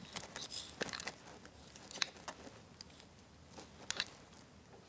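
Faint rustling of hair and clothing as a lock of hair is wound around a clamp-type curling iron, with a few light clicks and taps from handling the iron.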